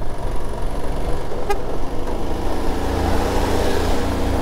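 Royal Enfield Himalayan's single-cylinder engine running as the motorcycle rides on, with a steady rush of wind noise; the engine note grows stronger about halfway through. A brief horn toot about one and a half seconds in.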